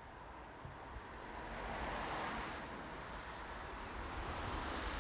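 Passing traffic on a wet road: the tyre hiss of a car swells to a peak about two seconds in and fades, over a steady low rumble.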